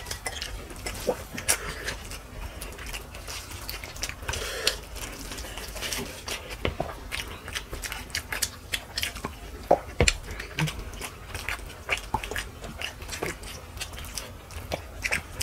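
People chewing and biting mutton and rice, with many quick, irregular wet smacks and clicks.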